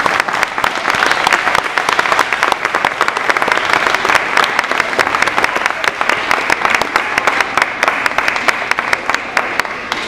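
Audience applauding in a hall: dense, steady clapping from many hands, thinning slightly near the end.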